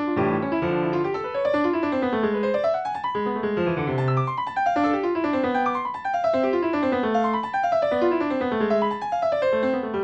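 Classical piano music: quick runs of notes that fall and rise in repeating patterns, about one run a second.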